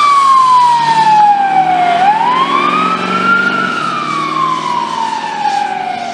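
Ambulance siren on a slow wail, its pitch gliding down, back up and down again, with the vehicle's engine running underneath. It grows fainter as the ambulance drives away.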